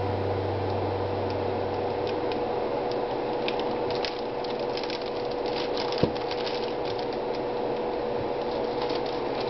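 Knife and soap slices being handled on a work surface: scattered small clicks and taps, with one sharper knock about six seconds in, over a steady hiss and faint hum.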